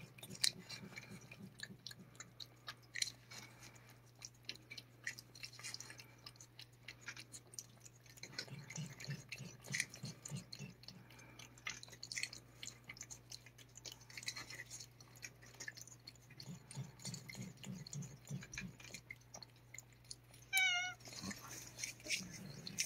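Cat licking paste from a lickable-treat squeeze tube: a quick, irregular run of small wet licking clicks. One short wavering call comes a little before the end.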